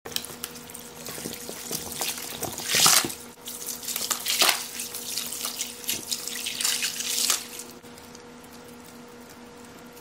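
Liquid cleaner poured from bottles onto crushed ice and a sponge in a plastic tub, splashing and trickling, with louder gushes about 3, 4½ and 7 seconds in. It thins to a quiet trickle over the last couple of seconds.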